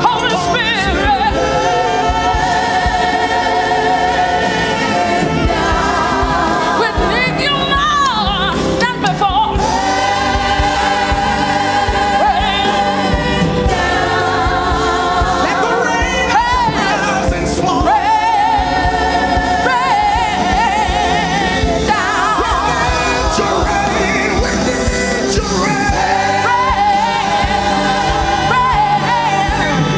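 Gospel choir singing a worship song with a lead vocal over a steady live band accompaniment.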